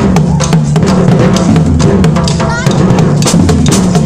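A street percussion band playing: large bass drums beaten with mallets under rapid stick hits on higher drums, in a steady driving rhythm.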